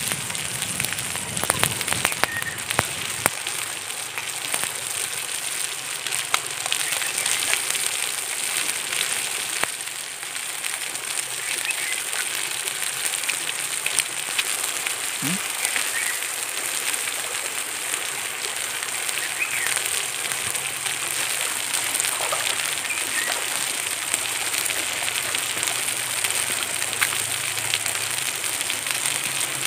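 Wood fire crackling under a hot stone slab with chicken and vegetables sizzling on it: a steady hiss with frequent sharp pops.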